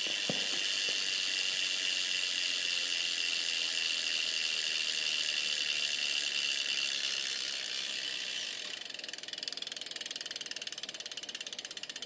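Rear hub of a BMX bike (Mission React hub) freewheeling as the rear wheel spins: the pawls click in a fast, loud buzz, which slows into separate rapid clicks over the last few seconds as the wheel loses speed.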